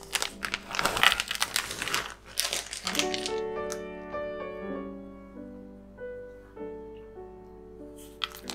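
Sweet beans (amanatto) being poured onto chopped fruit in a bowl, a dense crackle of small impacts for about the first three seconds, over background music. Then only the music, held notes of a slow melody, and the crackle starts again near the end.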